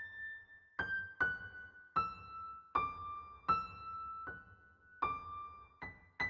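Background keyboard music: a slow melody of single high notes struck one at a time, each ringing and fading, the line falling and then rising.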